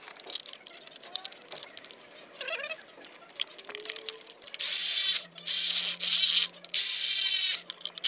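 Red cordless electric ratchet running in several short bursts over the last few seconds, driving in the T30 screws that hold the engine control unit to its heat sink. Before that come a few light clicks of parts being handled.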